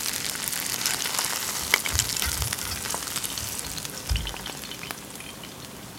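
Hot oil sizzling and popping under a just-finished Korean chive-and-shrimp pancake (buchimgae) as it is slid out of the frying pan onto a steel plate. The sizzle fades toward the end, with a few low thumps from the pan being handled.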